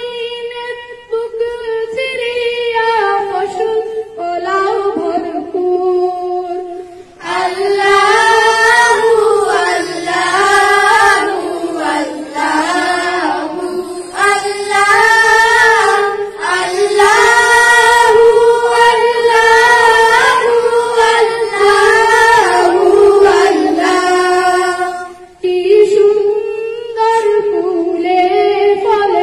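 Schoolchildren singing an unaccompanied Bengali Islamic gojol (ghazal) through a microphone, the melody moving over a steady held low note. The singing grows louder about seven seconds in.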